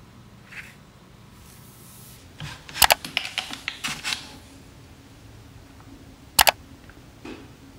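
A cluster of sharp clicks and knocks in a quiet small room, followed a few seconds later by one loud single click.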